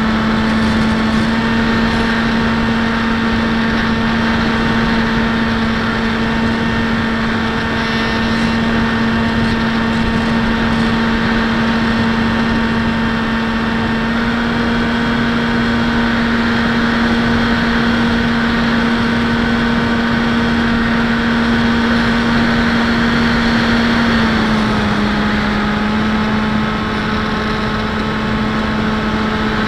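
Electric outrunner motor (D2826-6 2200kv) turning an 8x6 propeller on a Bixler 1.1 foam plane, heard from the onboard camera as a steady whine over rushing air. About 24 seconds in, the pitch drops a little as the motor slows.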